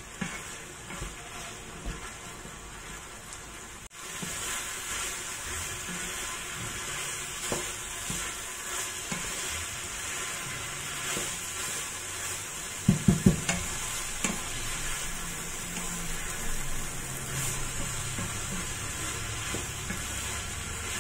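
Diced chicken sizzling as it browns in a frying pan, stirred with a wooden spoon that scrapes and knocks against the pan, with chips frying in a second pan. The sizzle grows louder about four seconds in, and a quick run of spoon knocks comes a little past the middle.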